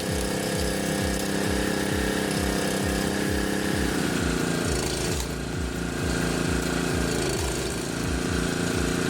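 Conical screw log splitter running under power: a steady motor drone with a regular low thudding several times a second.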